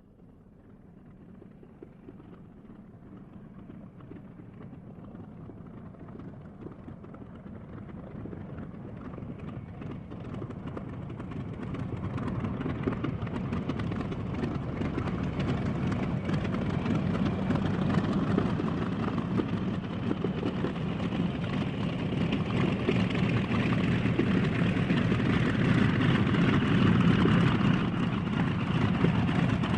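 Airplane taxiing up with its engine running at a rough idle, growing steadily louder from faint to loud as it approaches.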